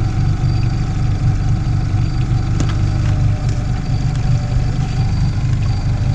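Boat engine running at a steady speed, a loud even drone.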